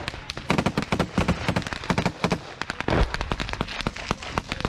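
Rifle and machine-gun fire at a trench assault: many shots in quick, irregular strings, with a deeper, heavier bang about three seconds in.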